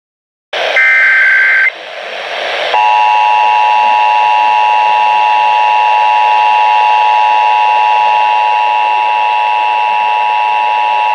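Emergency Alert System test signals over a hissy broadcast feed. About a second in comes a one-second burst of SAME header data, a two-pitch digital warble. About three seconds in the steady two-tone EAS attention signal starts, holds for about eight and a half seconds and cuts off abruptly just before the end.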